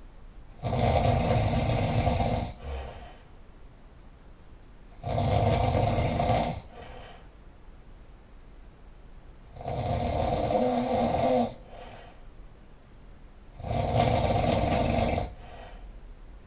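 A person snoring loudly and regularly: four long rasping snores, each lasting about a second and a half to two seconds and coming about every four seconds, with quieter breathing between them.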